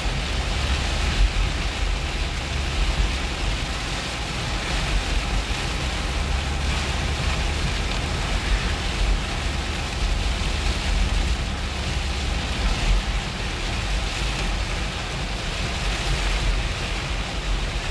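Heavy rain beating on a car's windshield and roof, heard from inside the moving car over the steady low rumble of the road and engine.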